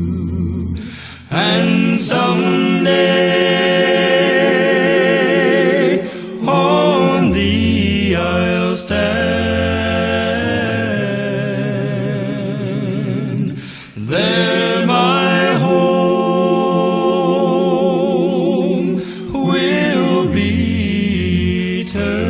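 Gospel quartet singing a cappella in harmony, the voices wavering with vibrato, with short breaths between phrases and a low part that drops in and out.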